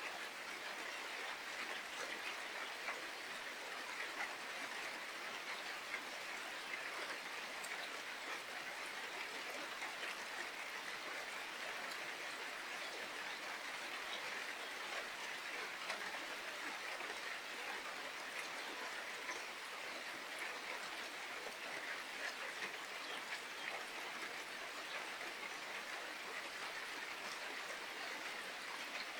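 Steady rain falling, an even hiss with many small scattered drop taps.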